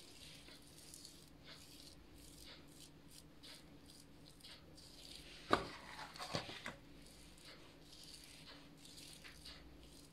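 Quiet kitchen handling on a granite counter: faint rustling, then a single sharp knock about halfway through followed by a short clatter of small taps as a utensil is picked up.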